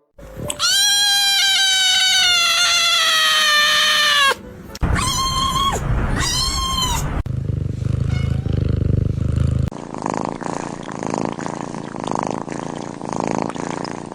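Kittens meowing: one long, drawn-out meow lasting over three seconds and falling slightly in pitch, then two short meows. After that comes a steady low purring with a fast pulse.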